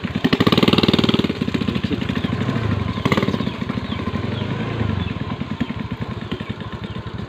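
Small motorcycle engine running while riding over a rough, potholed dirt road. Another motorcycle passes close by, loudest about a second in.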